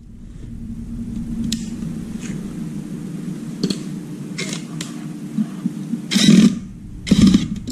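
A steady low engine-like hum with scattered small clicks, then two louder rattling knocks near the end, as parts of a hand-held power tool are handled and a new carbon brush is fitted.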